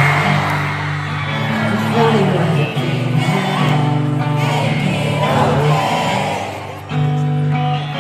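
Live pop-rock band playing a song with a lead vocal, and the crowd cheering along. The music dips briefly near the end, then the band comes back in.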